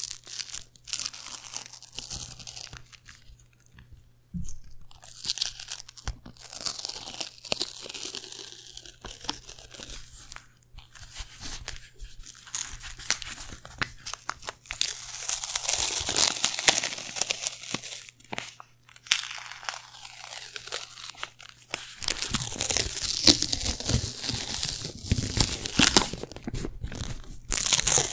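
Paper pages of a small notepad flexed, riffled and torn close to the microphone: crisp crinkling and tearing in irregular bursts with short pauses, denser and louder over the last several seconds.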